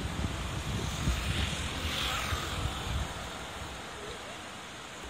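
Steady rushing of a river in flood, swollen and muddy after heavy rain, with low gusts of wind buffeting the microphone during the first three seconds.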